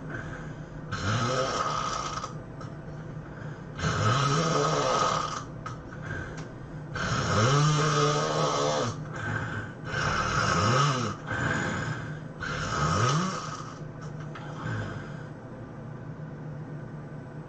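A person snoring heavily, about six snores a few seconds apart. Each is a noisy rush with a pitch that rises and falls, and the last ones are weaker.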